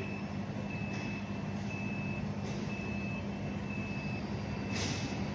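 Steady low machine hum with a high electronic beep that repeats at uneven spacing, each beep about half a second to a second long. A brushing noise comes in near the end.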